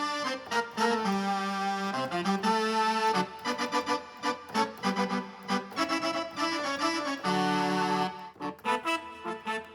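Korg N264 synthesizer keyboard playing a preset sound: a melody of quick notes over held chords, breaking into shorter separate notes near the end.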